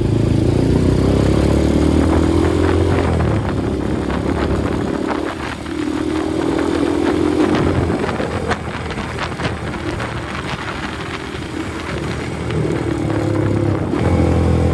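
Motorcycle engine running under way, heard from the rider's seat. Its pitch climbs under throttle several times and drops back in between, with a quieter, lower stretch about two-thirds of the way through.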